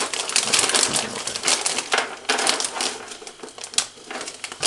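Crinkling and rustling of plastic packaging being handled: a dense crackle that thins out over the second half.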